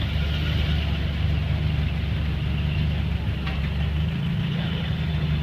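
Engine of a late-1930s Ford convertible running steadily at low speed as the car creeps past.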